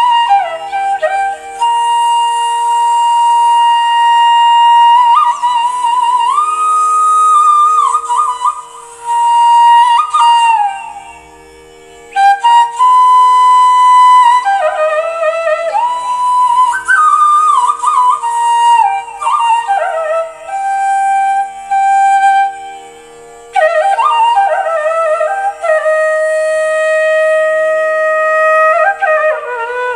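Background music: a Carnatic flute melody with sliding ornaments, played in phrases with short breaks, over a steady drone.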